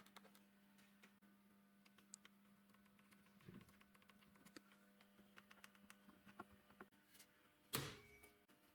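Near silence with a faint steady hum and scattered light clicks and taps, then a brief louder rushing noise near the end.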